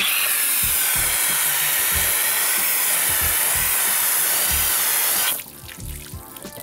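Garden hose spray nozzle blasting water onto car exhaust tips: a loud, steady hiss and splash that cuts off suddenly about five seconds in.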